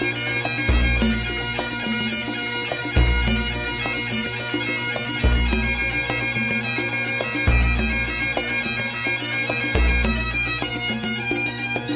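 Bagpipe music with a steady drone, over a deep bass beat that lands about every two seconds.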